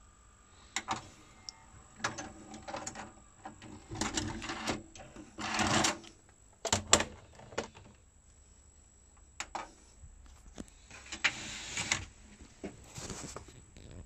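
Clicks and knocks as a Samsung SV-660B VHS video recorder's power button is pressed and the unit is handled, with a few short scraping or whirring noises mixed in. The loudest is a single sharp click about halfway through.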